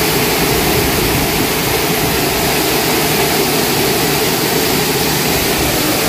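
Steady rush of falling water from a waterfall, an even roar with no breaks.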